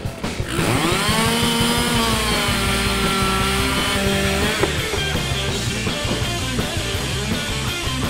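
A chainsaw revs up about half a second in and runs at high speed cutting a log, then falls away about halfway through, over rock music with a steady beat.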